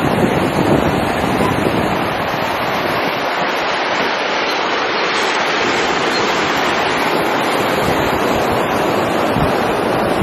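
Steady roar of river water rushing over the rocks of the gorge below, with some wind rumbling on the microphone, most in the first couple of seconds.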